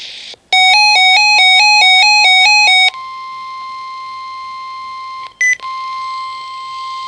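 NOAA Weather Radio alert going off. A loud beeping alarm alternates between two pitches for about two and a half seconds, then the steady 1050 Hz warning alert tone sounds, with a brief break about two seconds into it. Together they announce a severe thunderstorm warning.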